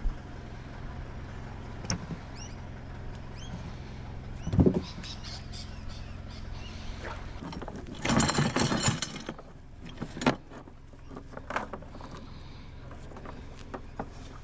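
An engine runs at a steady low hum. Short high chirps sound over it in the first half, with a loud thump about four and a half seconds in, a brief noisy rush near eight seconds and a sharp knock a little after ten seconds.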